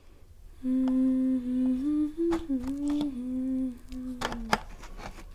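A woman humming with her mouth closed, a few held notes at a steady mid pitch lasting about four seconds. Several sharp crackles come from a flaky lachha paratha being handled, the loudest near the end.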